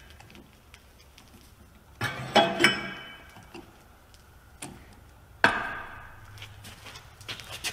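Sharp metal clanks with a ringing tail: a quick run of three about two seconds in, then one more loud clank later, with a faint tick between.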